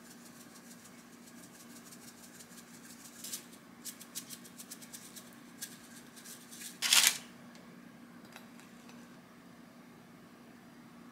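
Dried parsley shaken from a glass spice shaker jar: a quick run of light ticks and rattles. About seven seconds in there is one short, louder rustle, with a faint steady hum underneath.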